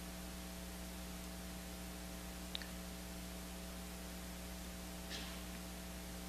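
Steady electrical mains hum with a haze of hiss, with one faint click about halfway through and a brief soft rustle near the end.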